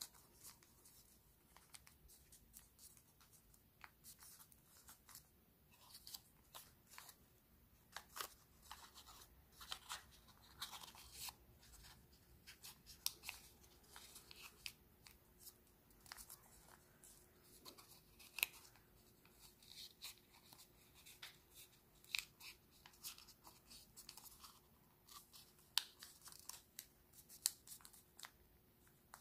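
Origami paper being folded and creased by hand: faint rustling and crinkling broken by many short, sharp crackles.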